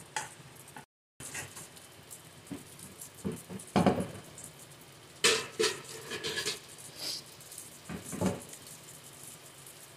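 An egg frying in a nonstick pan over a gas flame, a faint sizzle, broken by a handful of short, louder sounds in the second half.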